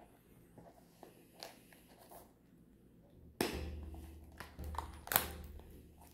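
Faint handling noises: a few light clicks, then a sudden rustling scrape about three and a half seconds in that fades away, and another sharp rustle about five seconds in.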